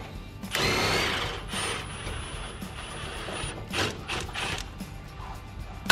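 Cordless impact wrench taking out the lower shock bolt on a truck's front suspension. A loud burst comes about half a second in, then the tool runs steadily with a high whine for about two seconds, with a few short bursts near the four-second mark.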